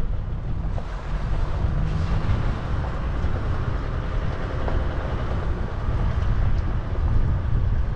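A 4x4 on the move: a steady low rumble of vehicle and road noise mixed with wind buffeting the microphone.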